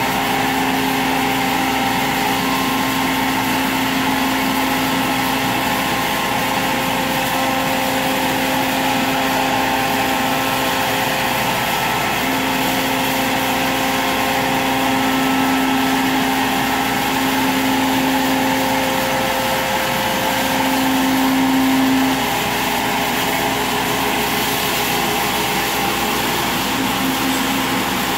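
CNC router spindle running and its bit cutting an aluminium composite sign panel as the gantry travels, a steady mechanical whine over a hiss. The low tone shifts and swells with the tool's load, loudest about twenty seconds in before dropping back.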